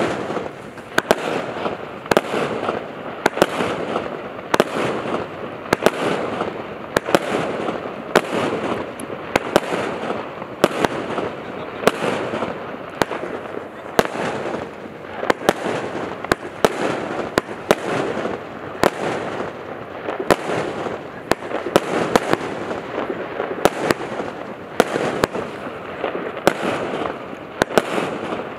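Brutus Fireworks 280-shot compound firework cake firing continuously: a couple of sharp bangs each second over unbroken crackling.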